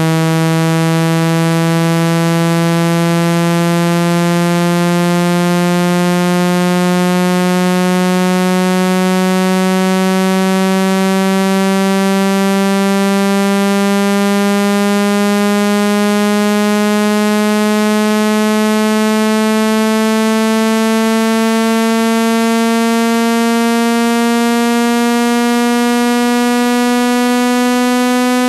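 Synthesized low buzzing tone, rich in overtones, gliding slowly and steadily upward in pitch. It is a speaker water-eject sweep, meant to be played at full volume through an iPhone speaker to shake trapped water out of the grille.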